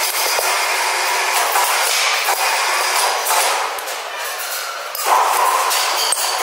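Steady, loud workshop din, a noisy hiss with no clear tone, with a few light metallic knocks as a steel excavator track chain link is worked together with a hand tool.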